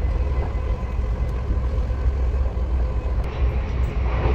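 Steady rumble of a moving passenger train heard from inside the carriage, with a faint steady hum over it; a brighter hiss joins about three seconds in.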